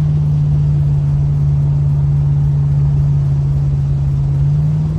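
The LS-swapped box Chevy's V8 engine running steadily under way. It gives a strong, even drone over a low rumble, which eases slightly near the end.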